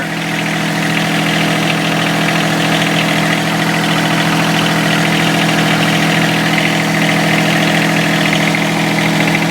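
John Deere 1023E compact tractor's three-cylinder diesel idling steadily while it warms up.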